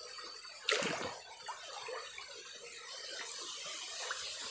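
Shallow water splashing and trickling as a small animal swims and dives in it, with one louder splash about a second in.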